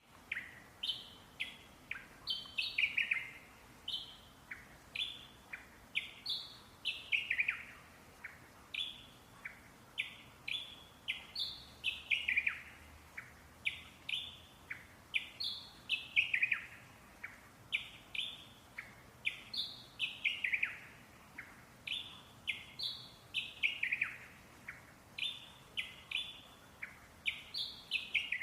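Parrots chirping and calling: short high chirps and falling whistled sweeps, in similar phrases that recur about every four seconds.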